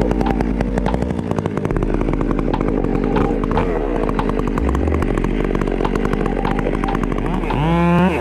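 Stihl MS 362 two-stroke chainsaw running steadily.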